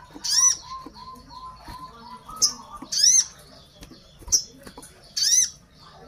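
Sogon bird calling repeatedly: about five loud, sharp high notes a second or so apart, with a softer run of lower notes between the first few. This is its call to others of its kind.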